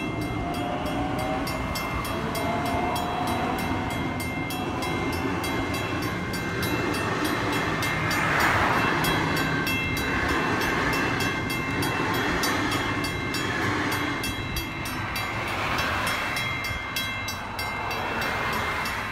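A Sydney Trains Waratah double-deck electric suburban train passes slowly over a level crossing, its carriages and wheels rumbling steadily on the rails. Its electric motors whine, rising in pitch over the first few seconds. The crossing's warning bell rings steadily throughout.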